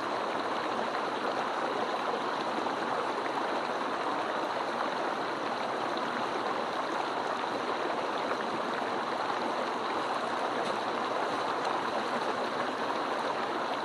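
Mountain stream rushing over rocks in a steady, unbroken flow.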